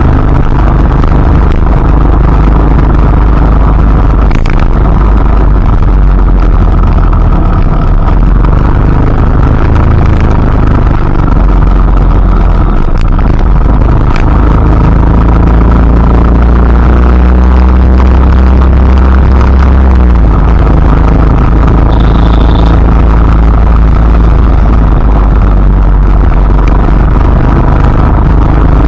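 Loud, steady low rumbling noise with little high hiss, with a brief faint high chirp about 22 seconds in.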